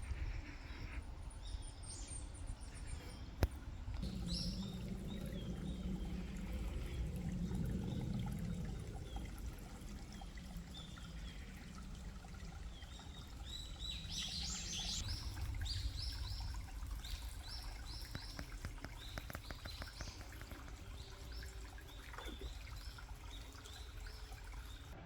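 Small birds chirping in woodland, a busy run of calls about halfway through, over a steady low trickle of running water.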